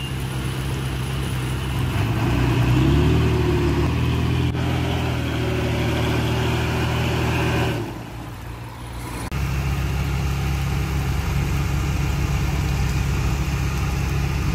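Heavy diesel engine of earthmoving machinery running, revving up about two seconds in, then running steadily; it drops away briefly just before eight seconds and comes back abruptly about a second and a half later.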